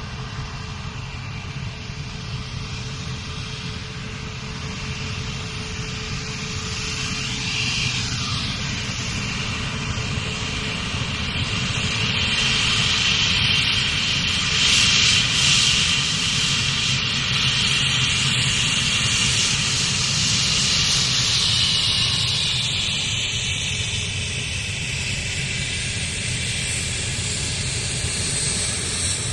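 Jet aircraft flying past: a loud, steady roar that builds, with sweeping pitch changes about a quarter of the way in, peaks about halfway through, then slowly eases off.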